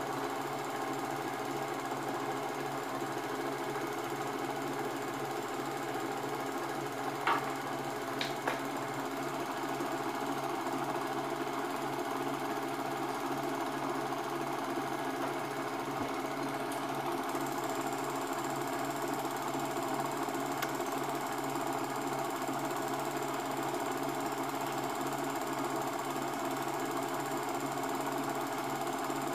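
Cine film projector running steadily, with two short clicks about seven and eight seconds in.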